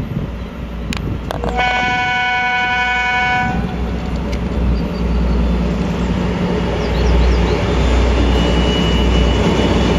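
2M62 twin-section diesel locomotive approaching with a train. It gives one horn blast of about two seconds, starting a second and a half in, over the low drone of its two-stroke diesel engines. The drone grows louder as it nears.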